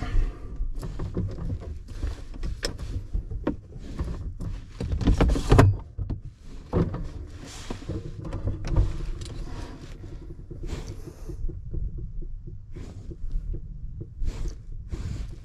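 Cockpit noise of an ASW 15 glider at launch: an irregular low rumble with many knocks and rattles from the airframe, loudest about five seconds in.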